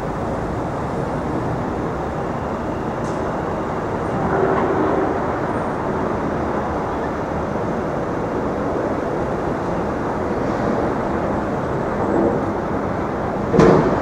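Steady street traffic noise, the rush of passing vehicles, with one vehicle swelling louder about four seconds in. A brief louder sound comes near the end.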